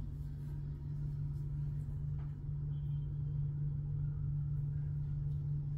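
Steady low mechanical hum with a deep rumble under it, holding one even pitch throughout.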